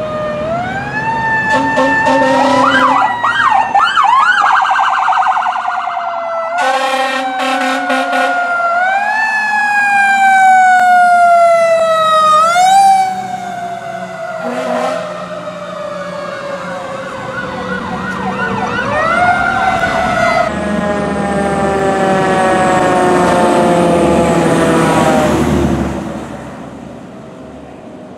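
Emergency vehicle sirens on responding fire engines and a police vehicle: a wail that rises quickly and falls slowly, repeated several times, with a brief fast warbling passage and a burst of quick chirps. Later a loud rushing noise joins the siren for several seconds before the sound drops away near the end.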